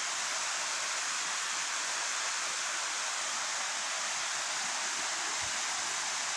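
Water running over a waterfall that has almost dried up: a steady rushing hiss.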